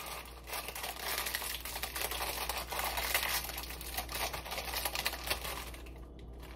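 Foil Pop-Tart wrapper crinkling and crackling as it is handled and torn open by hand. The dense run of crackles eases off near the end.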